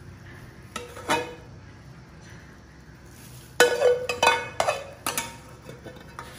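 A metal spoon knocking and scraping against a steel pot as sauce is spooned out of it. Two light clinks about a second in, then a run of loud, ringing clanks from about three and a half to five seconds in.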